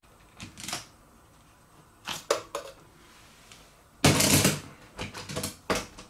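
Hard plastic clicking and clattering as the clear dust case of a Makita cyclone vacuum attachment is unlatched and taken off, in several short bursts with the loudest about four seconds in.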